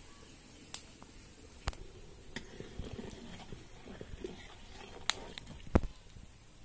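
A metal spoon knocking and clinking against a steaming aluminium pot as the contents are stirred over a wood fire: a few scattered sharp clicks, the loudest near the end.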